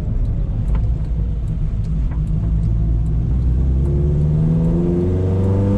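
Mitsubishi Lancer engine and straight-piped exhaust heard from inside the cabin while driving, a steady engine note that climbs in pitch over the last couple of seconds as the car accelerates.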